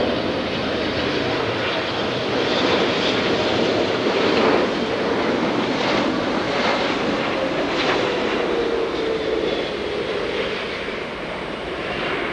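Jet engines of a twin-engine widebody freighter on final approach flying low past: a steady rushing noise with a whine that slowly drops in pitch as the aircraft goes by.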